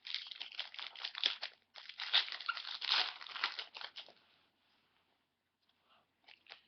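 A foil trading-card pack wrapper being torn open and crinkled, a dense crackling for about four seconds, then stopping, with a few faint clicks near the end.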